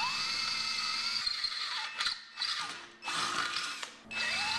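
Cordless drill boring a hole through a metal mounting bracket. Its motor whine spins up, cuts out briefly a couple of times about halfway through and again near the end, then spins up again.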